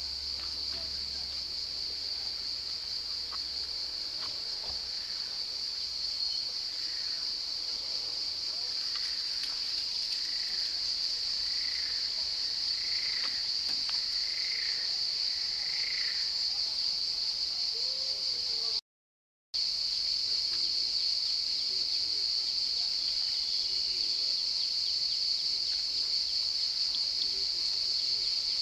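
Cicadas in the riverside trees droning steadily at a high pitch. Through the middle, a run of short calls repeats about once a second from another animal. The sound drops out briefly about two-thirds of the way through.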